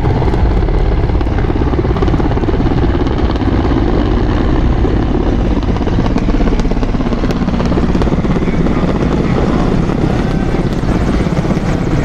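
Formation of military helicopters flying low overhead, with a loud, steady drone of rotors and engines.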